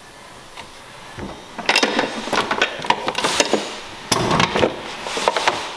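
Plastic car bumper cover being handled by hand: an irregular run of clicks, knocks and rattles starting about a second and a half in, with a louder rustling scrape about four seconds in.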